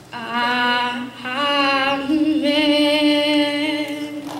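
A single unaccompanied voice singing three sustained notes, the last held for about two seconds.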